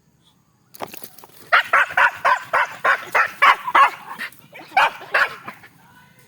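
A hunting dog barking in a quick run of about three barks a second, then pausing briefly before two more barks.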